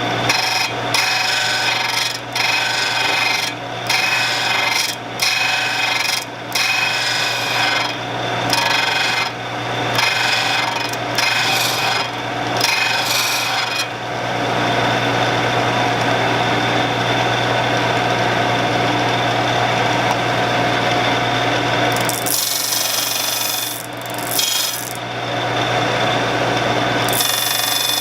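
Shopsmith motor running steadily while a wood-lathe blade is ground on the sharpening wheel. The grinding rasp comes in short strokes a little over a second apart, then runs continuously from about halfway. The blade is pressed hard enough that the edge is burning.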